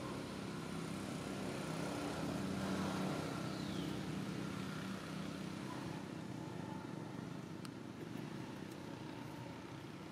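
Background hum of a motor vehicle engine, swelling about a third of the way in and slowly fading, with a faint short falling whistle about four seconds in.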